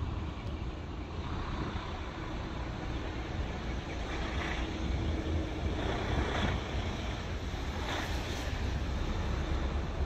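Wind rumbling on the microphone over a steady outdoor hiss, which swells briefly three times in the second half.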